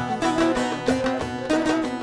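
Instrumental Turkish folk music led by plucked string instruments, playing quick notes in an even rhythm.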